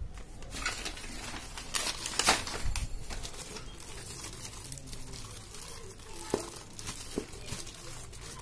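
Clear plastic packaging bag and a paper invoice crinkling and rustling as hands handle them, in irregular bursts that are loudest about two seconds in, then quieter handling.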